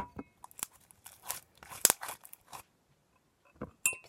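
Hands kneading sticky glue-based slime in a bowl: scattered wet clicks and crackles as it pulls and squishes, with a quiet gap about three seconds in.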